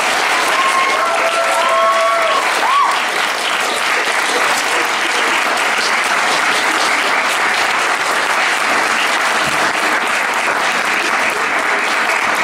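Audience of high-school students and teachers applauding steadily at the close of a talk, with a few short pitched cheers in the first three seconds.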